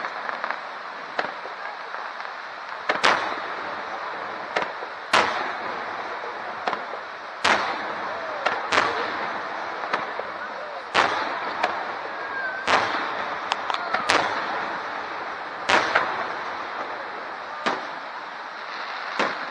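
Aerial fireworks shells bursting in the sky, with a sharp bang every second or two over steady background noise.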